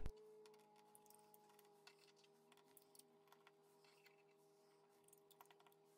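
Near silence: faint room tone with a steady low hum and a few soft clicks.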